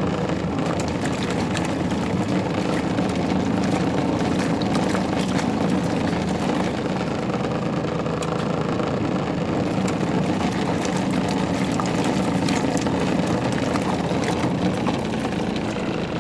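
Twin tub washing machine's wash tub running on its normal setting: a steady motor hum as the pulsator churns work pants through the water, with light sloshing and crackle throughout.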